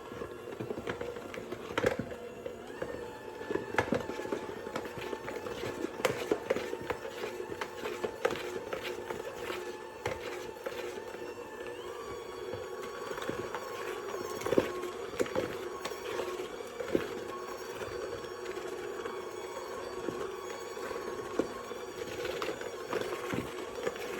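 Electric hand mixer fitted with dough hooks running steadily through bread dough, a constant motor hum with irregular knocks of the hooks against the bowl.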